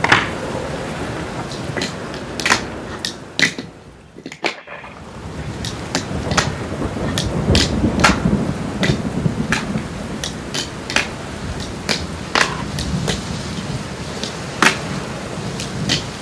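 Fingerboard wheels rolling over a wooden board, broken by many sharp clicks and clacks of the little deck popping, landing and striking a small ledge. The rolling drops away for about a second around four seconds in.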